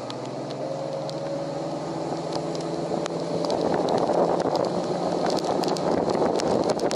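Bass boat's outboard motor running under way with a steady engine tone, soon buried under rushing wind and water noise that grows louder as the boat picks up speed. Scattered light ticks of raindrops come through over it.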